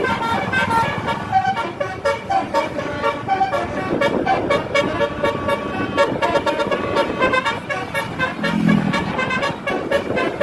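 Bus telolet horn of the basuri type playing a tune of short, quickly changing horn notes, with a brief deeper horn note near the end.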